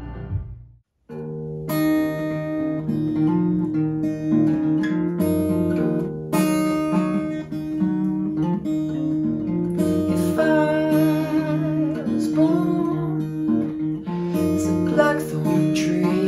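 A held sung note with backing music dies away into a moment of silence. Then a steel-string acoustic guitar starts playing chords, and a man's voice sings softly over it from about ten seconds in.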